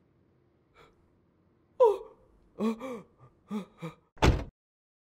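A person gasping and whimpering in distress: a few short strained breaths and cries that rise and fall in pitch. Then comes a short, loud thud a little over four seconds in.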